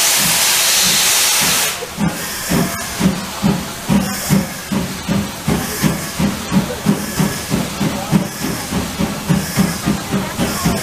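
ČSD class 555.3 'Mazutka' oil-fired steam locomotive: a loud steady hiss of steam stops about two seconds in, then the exhaust beats from the chimney start up and quicken from about two to about three a second as the locomotive gets under way.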